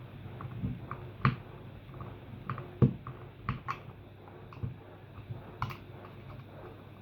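Scattered small clicks and knocks from the plastic casing and screws of an Eheim 400 air pump being handled during reassembly, with two sharper knocks, about a second in and just under three seconds in.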